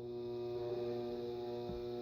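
Airmaster ceiling fan motor switched on and humming steadily with a mains buzz, with a brief low falling sound near the end.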